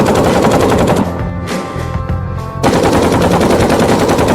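AK-47 rifle firing long, rapid full-automatic bursts in a sustained-fire durability test. The firing stops for about a second and a half after the first second, then resumes.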